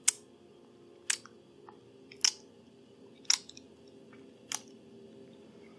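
Close-miked ASMR mouth sounds: five sharp, wet mouth clicks about a second apart.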